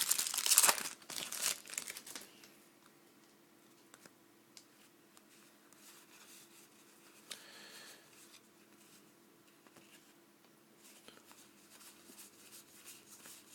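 Plastic wrapper of a 2008-09 Fleer basketball card pack crinkling and tearing for the first two seconds or so. It then goes quiet, with only a few faint light taps.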